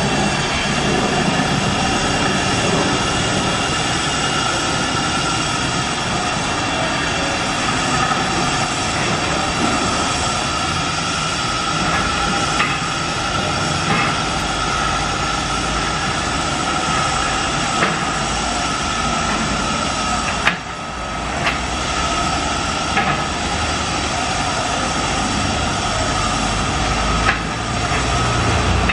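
Construction machinery running steadily, a dense drone with a steady whine in it, broken by a few sharp clicks.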